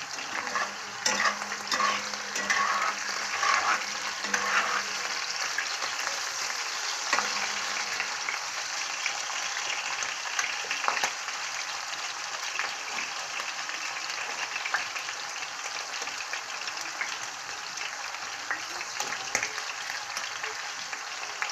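Pieces of goat heart sizzling in hot oil in a cast-iron frying pan, with a steady hiss throughout. A metal spatula scrapes and clicks against the pan as the pieces are stirred, most often in the first few seconds.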